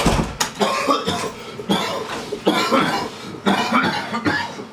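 A man coughing hard and repeatedly, choking on aerosol spray sprayed into his face.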